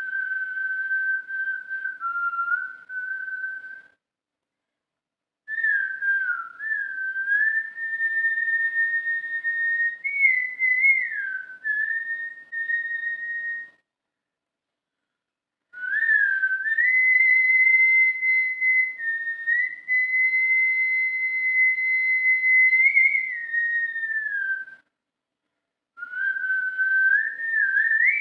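A man whistling a slow tune, with held notes joined by small slides, in four long phrases separated by short pauses.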